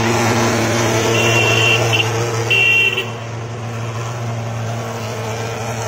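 Pulse-jet thermal fogger running with a steady low buzzing drone, getting a little quieter about three seconds in. Two short vehicle-horn toots sound over it, about a second in and again near the three-second mark.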